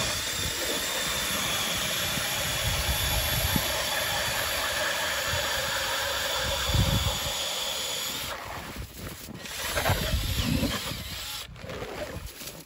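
Cordless drill turning an ice auger as it bores through ice: a steady motor whir with the noise of the cutters chewing ice. It runs for about eight seconds, stops, then runs again in shorter uneven bursts near the end.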